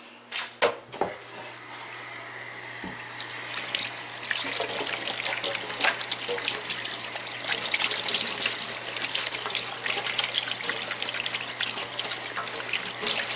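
Kitchen faucet running with water splashing in the sink, building up over the first few seconds and then steady, after a few brief knocks at the start.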